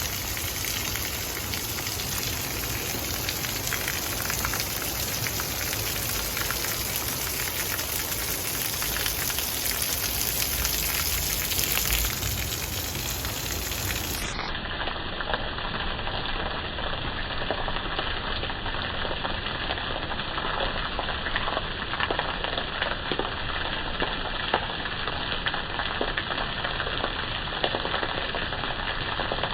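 Heavy rain pouring steadily in a thunderstorm. About halfway through the sound turns duller, with scattered small ticks of drops striking surfaces.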